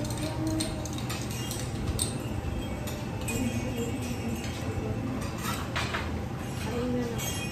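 Metal spoons and serving utensils clinking against ceramic plates, bowls and a soup cup as food is served, a few scattered clinks over a steady low room hum.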